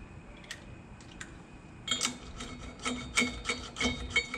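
Steel lug nuts clinking together in a hand as they are picked out and threaded onto wheel-spacer studs: a couple of faint clicks at first, then from about halfway through a run of sharp, ringing metal clinks, several a second.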